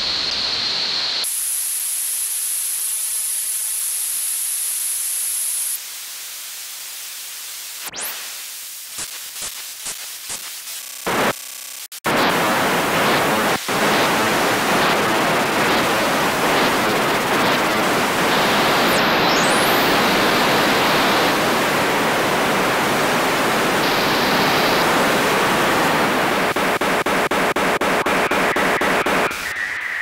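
White noise soundtrack, switching abruptly between filtered bands of hiss. About a second in, a thin high whistle sits over quieter hiss for several seconds; around eight to twelve seconds in come sharp clicks and short chopped bursts; then loud hiss across the whole range for the rest, with a brief rising whistle about halfway through.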